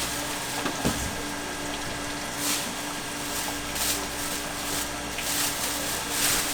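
Steady background hum with a constant low tone, a single thump about a second in, and several short hissing bursts in the second half.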